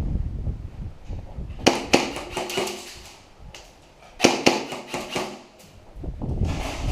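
Airsoft gun firing in short bursts of sharp clicks, three bursts about two seconds apart. A low rumble of movement on the microphone comes near the start.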